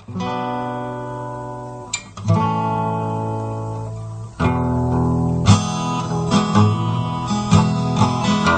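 Acoustic guitar strummed: three single chords left to ring out, about two seconds apart, then steady rhythmic strumming from about halfway through.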